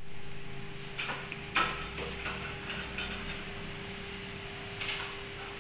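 Irregular metal clicks and knocks from the clamps and frame of a hydraulic butt fusion machine as HDPE pipe is set in it by hand, the loudest about a second and a half in, over a steady hum.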